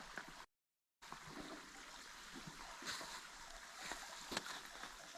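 Faint, steady creek water trickling and running, with a few light clicks. The sound cuts out completely for about half a second near the start, then resumes.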